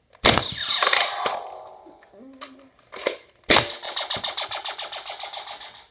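Toy blaster's sound effects: a sudden blast with a fading tail at the start, then about three and a half seconds in a second blast that runs into a fast, even machine-gun rattle and cuts off suddenly.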